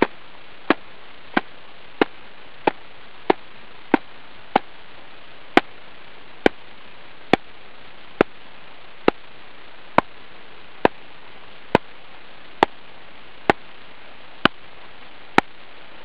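Gloved hand tapping on an avalanche shovel blade laid on a snow column in an extended column test, twenty single taps in steady counted series. The taps come about every two-thirds of a second for the first four and a half seconds, then slow to about one a second as the swing moves up from the wrist to the elbow and shoulder, loading the buried weak faceted layer.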